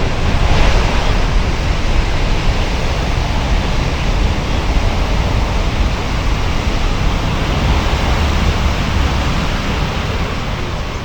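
Steady rushing roar of big ocean surf, a dense even noise heavy in the low end.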